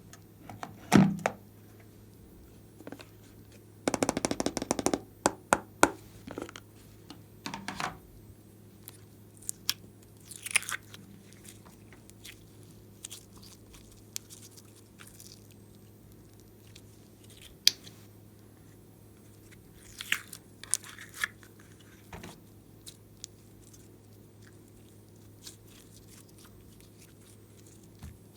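Glossy slime being squeezed, stretched and folded by hand, giving sticky pops and crackles in scattered bursts. There is a dense run of rapid clicks about four seconds in, and quieter gaps between the bursts.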